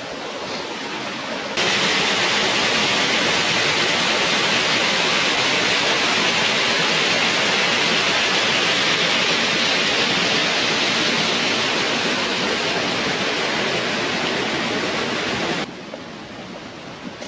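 Water rushing over a waterfall or cascade, a loud, steady rush that cuts in suddenly about a second and a half in and cuts off suddenly near the end.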